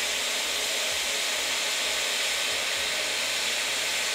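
Hobbyist hot-air plastic welding gun running steadily: an even hiss of hot air blowing through its speed-welding tip as HDPE welding rod is fed into the seam.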